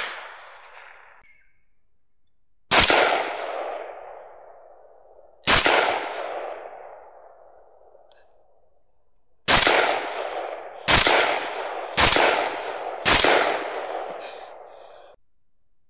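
Rifle shots: six single shots, the first two about three seconds apart and the last four about a second apart, each followed by a long fading echo.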